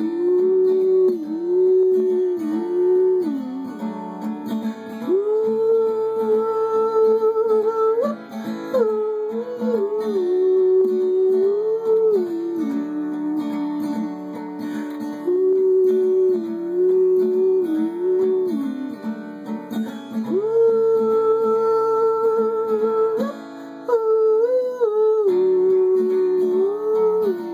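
A cowboy yodel: long held wordless vocal notes with sudden leaps and quick flips in pitch, over a strummed acoustic guitar.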